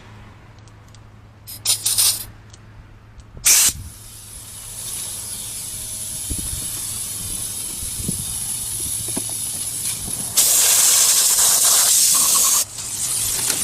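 Long steady hissing spray, with a thin high whistle in it, louder for about two seconds near the end; a few short sharp bursts of spray come before it.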